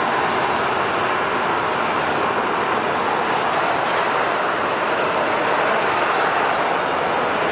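Jet engines of a Boeing 737 airliner running at taxi power: a steady rushing noise with a faint, thin high whine.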